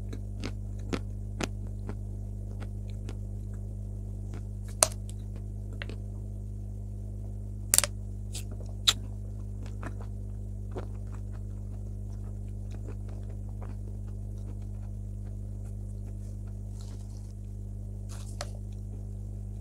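Dry chalk being chewed close to a clip-on microphone: sharp crunches, several in the first two seconds, three louder ones about five, eight and nine seconds in, then only an occasional faint crunch. A steady low electrical hum runs underneath.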